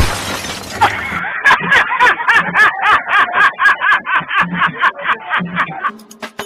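A run of rhythmic laughter, about four bursts a second, fading out near the end.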